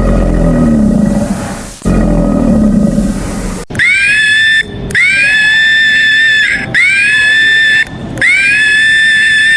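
Animal calls: a deep, low roar, then after an abrupt cut a run of four high-pitched calls, each rising briefly and then held steady for a second or more.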